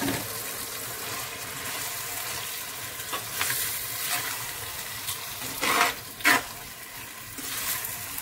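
Raw mutton sizzling in hot oil in a clay pot, with a steady sizzle under several short scraping strokes of a metal ladle against the pot as the meat is stirred.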